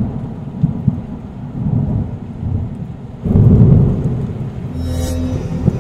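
Thunder rumbling with rain, the rumble swelling again about three seconds in, and a short hiss near the end.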